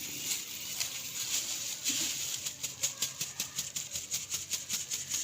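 A kitchen strainer being tapped or shaken to sift gram flour and cornflour onto boiled potatoes, giving a run of light, rapid ticks that quicken about halfway through.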